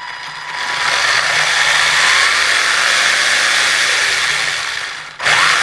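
An RC car's electric motor and drivetrain spinning its wheels up to high speed off the ground: a loud, steady whirring whine that rises in pitch as it winds up, eases briefly near the end, then winds up again.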